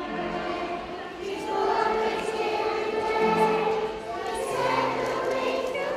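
A group of kindergarten children singing a song together.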